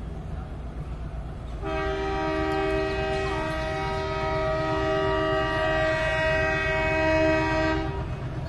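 Locomotive air horn of the approaching Palace On Wheels, blown in one long, steady blast of about six seconds that starts about two seconds in. A steady low rumble sits underneath throughout.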